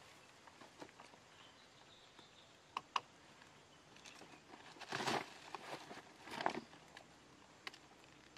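Footsteps and rustling through dry undergrowth and branches, with scattered sharp snaps and cracks, and two louder bursts of crunching rustle about five and six and a half seconds in.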